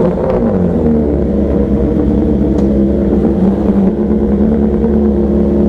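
Superbike inline-four engine and exhaust running loudly at low revs. The pitch dips briefly in the first second, then holds steady.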